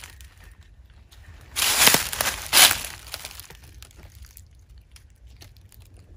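Footsteps crunching through dry leaf litter, two steps about a second and a half in, then faint rustles and ticks.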